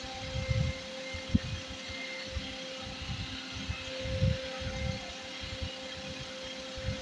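Steady mechanical hum, with irregular low bumps and rubbing and one sharp click about a second and a half in, from hands handling a small wooden handle, metal tip and thin copper wire.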